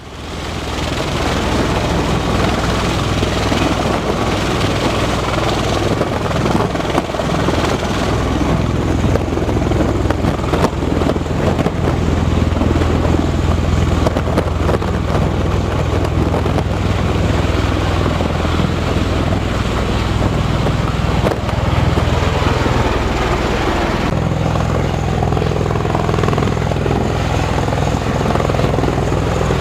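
Military rotorcraft running on an amphibious assault ship's flight deck: a steady heavy drone of turbine engines and rotor wash. Near the end the engine tones shift as the aircraft changes power.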